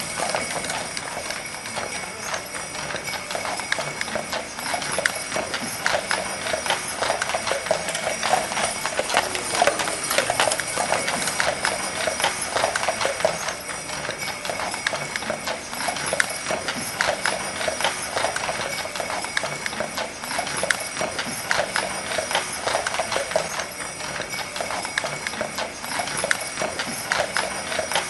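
Horse hooves clip-clopping in a steady, unbroken rhythm.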